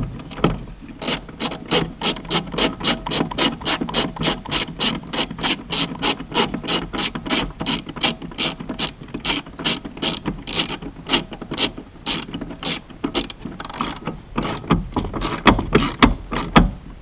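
Hand socket ratchet clicking steadily, about three to four clicks a second, as an M10 spline bolt is wound into a car's seat belt anchor. Near the end there is a short pause, then a few more irregular clicks and knocks.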